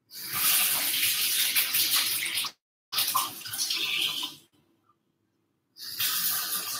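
Running water, in three spells that start and stop abruptly.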